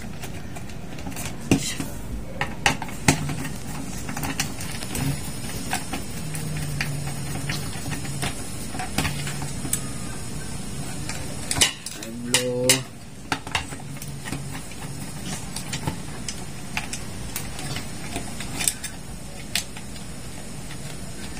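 Scattered clicks and light metallic clinks of hands working wire connectors and a screwdriver on an air-conditioner control board in its sheet-metal housing, over a steady low hum. The sharpest clicks come about a second and a half in, around three seconds, and just before twelve seconds.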